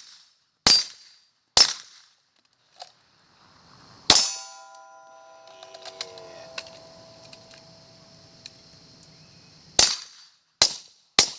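Six pistol shots fired at an uneven pace: three in the first two seconds, one about four seconds in, and three more near the end. The shot about four seconds in is followed by a steel target ringing, a metallic tone that fades over about five seconds.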